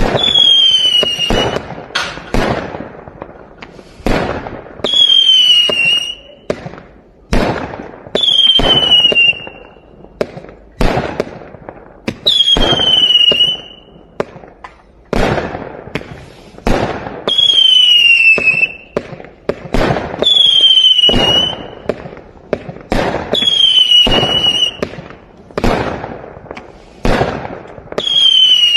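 A 168-shot fireworks cake with mixed effects firing in quick succession: sharp bangs and crackles about every second, with whistling shots whose pitch falls slightly, recurring every few seconds.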